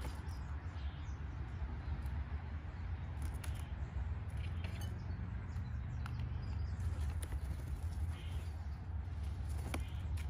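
A few scattered sharp clicks as a Steller's jay pecks peanuts in a bowl, over a steady low rumble.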